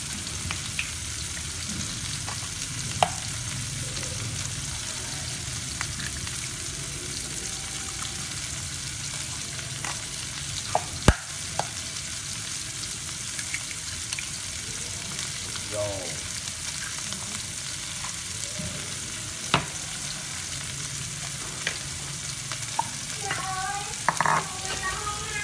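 Oil sizzling steadily in a frying pan, with a few sharp clicks.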